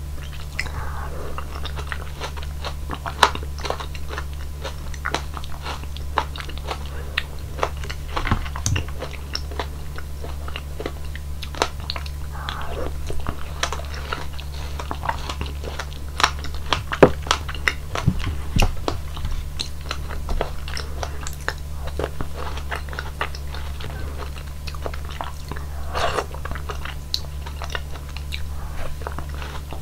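Close-miked chewing of soft fruit pieces from hwachae (Korean fruit punch with watermelon, dragon fruit, blackberry and mango). Many short mouth clicks run throughout, over a steady low hum.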